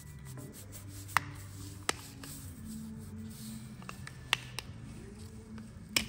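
Plastic ignition-switch cover being pried open with a small pick: scraping of the tool on the plastic, broken by a handful of sharp clicks as the snap clips let go, the last as the cover comes off.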